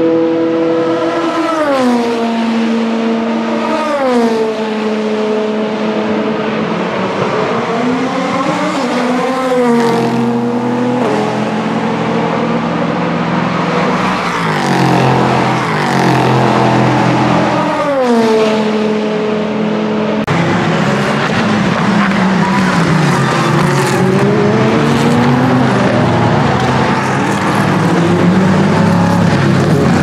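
Endurance race cars passing at full speed one after another, several engine notes each falling sharply in pitch as the car goes by. After a cut about 20 seconds in, an Aston Martin Vantage GTE race car goes through a corner, its engine note falling and rising as it slows and accelerates again.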